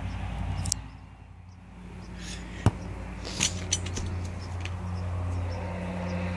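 Steady low motor hum, with a sharp knock about two and a half seconds in and a few lighter clicks shortly after.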